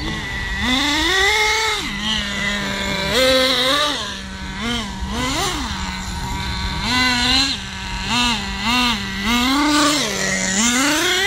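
Small high-revving engine of the Tornado S30 being run in, holding a steady idle and blipped up and back down about ten times, some blips short and some held for a second or so.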